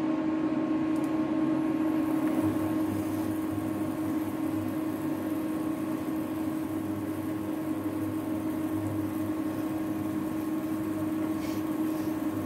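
Steady electric hum of an electric cooktop running under an aluminium pot of boiling thick mung dal, which is being stirred with a wooden spatula.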